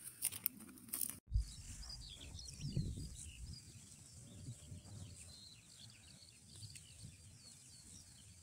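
Skylarks singing: a continuous faint twittering of many quick high chirps, over a low rumble of wind on the microphone. A few clicks and rustles of handling in the first second.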